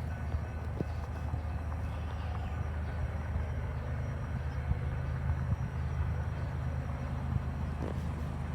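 Freight train running by, a steady low rumble.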